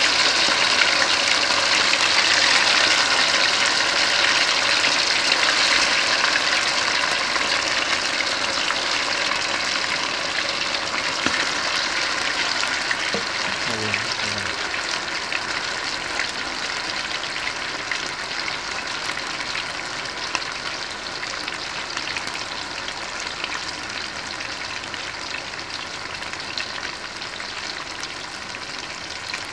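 Chicken pieces deep-frying in hot ghee: a dense, steady crackling sizzle of moisture boiling off the marinated meat, slowly quietening as the oil settles around the pieces.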